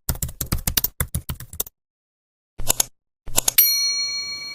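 A rapid run of typing key clacks, a short pause, two brief further clusters of clacks, then a single bell ding about three and a half seconds in that rings on and slowly fades.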